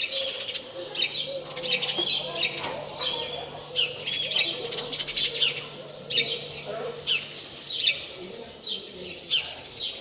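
Small birds chirping busily: many short, quick, falling chirps, some in rapid runs. A faint, steady low hum lies underneath until about three-quarters of the way through.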